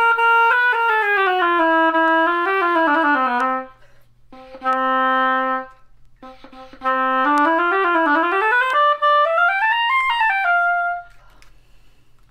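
Oboe played with a freshly scraped cane reed to test its response. It runs down through a series of notes to a held low note, holds that low note again after a short break, then climbs up through the range after a second break.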